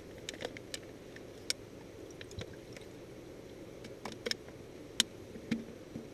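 Handling noise of a plastic cup and a small bottle: scattered light clicks and taps as the bottle is tipped over the cup, the sharpest tap about five seconds in, over a steady low background hum.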